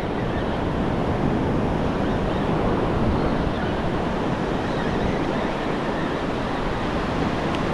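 Steady rush of ocean surf, with a low wind rumble on the microphone.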